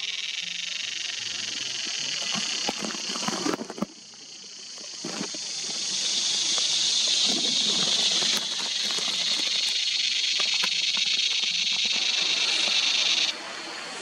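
Cicada singing: a steady, high, buzzing drone that dips about four seconds in, swells back up over a couple of seconds, and stops abruptly near the end.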